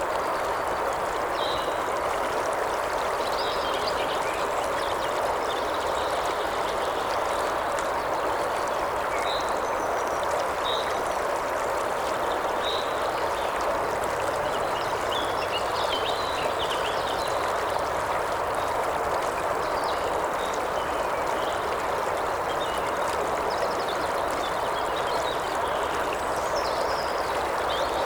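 A river flowing steadily, with short high chirps scattered throughout.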